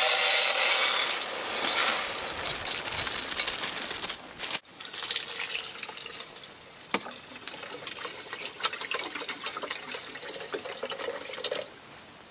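Rice poured from a plastic bag into an aluminium hangō mess tin, a loud hiss for about two seconds. After a break, water runs from the tap of a plastic water jug into the mess tin.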